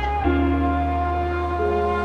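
Soft, slow background music: held instrumental notes over a steady bass.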